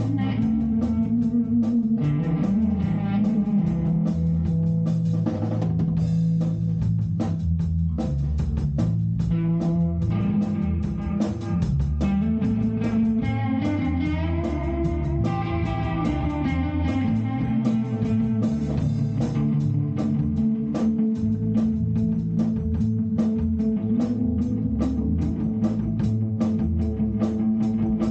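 Instrumental rock music: electric guitar and bass playing over a drum kit, the guitar holding and bending notes.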